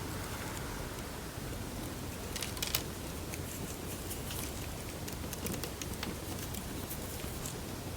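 Slime being kneaded and mixed with paper clay by hand: soft squishing with scattered small crackles and clicks, a short cluster of them about two and a half seconds in.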